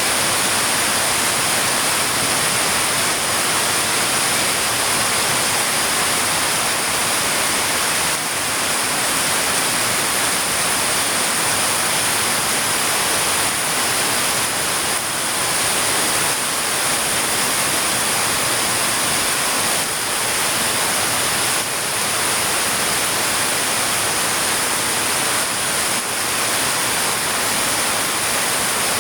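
Heavy rain falling, a steady dense hiss with no separate drops or thunder standing out.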